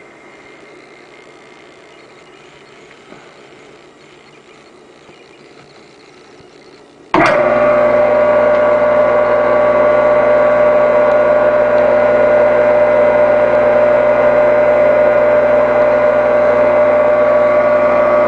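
Delta/Rockwell 1.5–2 HP capacitor-start induction motor, wired for 115 volts, switched on about seven seconds in: it comes up to speed at once and then runs steadily at full speed with an even hum and whine.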